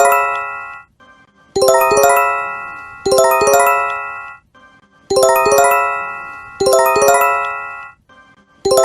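Japanese J-Alert emergency warning chime for an earthquake or tsunami: a quick run of bell-like electronic tones that rings out and fades. It sounds in pairs about a second and a half apart, and the pair repeats after a short pause.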